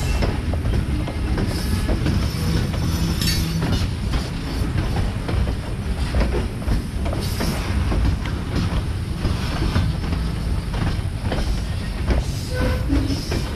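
Freight train cars rolling past close by: a steady low rumble with a running, uneven stream of wheel clacks over the rail joints.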